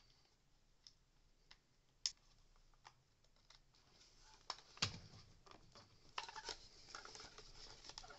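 Faint clicks and taps of hard plastic Dyson cleaner-head parts being handled and a screw being driven with a small Torx screwdriver, with a sharper click about two seconds in and another about five seconds in, and busier clicking and rubbing near the end.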